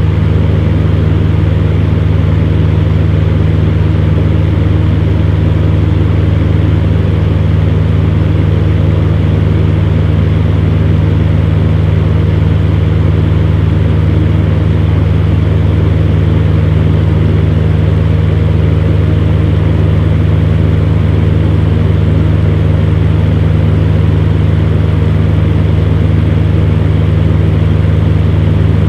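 Electric fan heater running steadily: a constant low motor hum under an even rush of blown air, with no change in speed.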